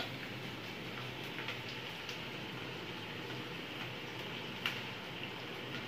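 Sliced onions sizzling steadily in hot oil as they are tipped into the wok, with a few light clicks, the sharpest about three-quarters of the way through.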